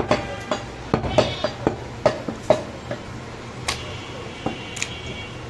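Butcher's cleaver chopping goat shoulder meat on a wooden chopping block: sharp, uneven chops, about two a second.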